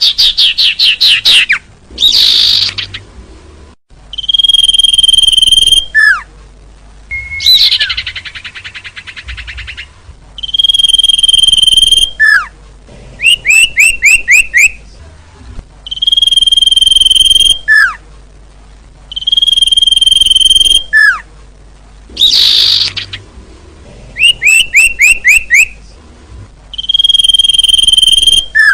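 Bird-lure call recording for trapping small songbirds, playing a repeating loop. The loop is made of steady high whistles about a second and a half long, quick runs of five or six sharply falling chirps, short sliding notes, and a few harsh buzzy calls, with short pauses between the phrases.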